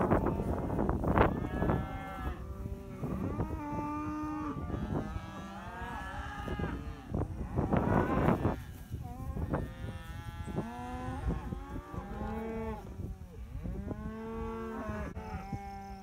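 A penned herd of Angus cattle mooing, many calls at different pitches overlapping one another, with louder, rougher bellows near the start and about eight seconds in.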